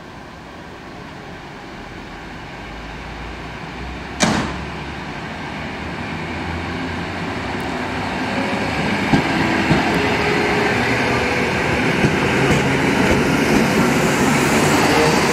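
EN57 electric multiple unit pulling away from a platform, its running sound growing steadily louder as it gets under way. There is a single sharp clack about four seconds in. From about eight seconds a hum with several steady tones joins the sound, along with a few light clicks.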